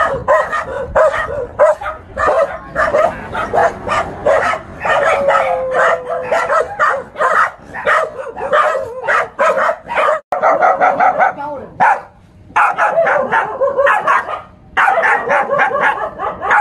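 Several dogs barking rapidly and almost without pause, alarm barking at a stuffed toy tiger dangled near them, with a few short breaks in the second half.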